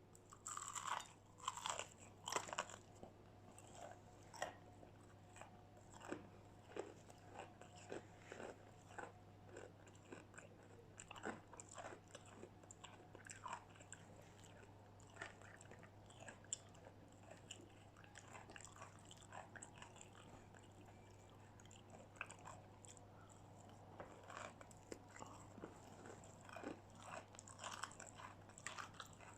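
Close-up biting and chewing of crispy battered fried chicken and fries: sharp crunches, loudest in the first few seconds, then steady chewing with scattered crunches.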